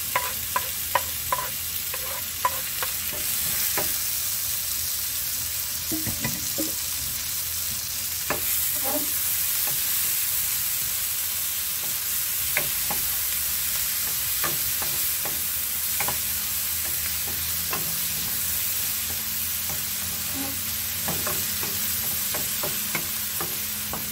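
Chopped onion and tomato sizzling in hot oil in a nonstick wok, stirred with a wooden spatula that scrapes and knocks against the pan. In the first second or so, a few quick, evenly spaced taps come as a wooden chopping board is knocked on the pan's rim.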